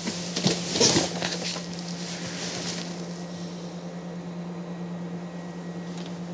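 Quiet office room tone with a steady low hum. A few brief rustles and knocks in the first second and a half, then only the hum.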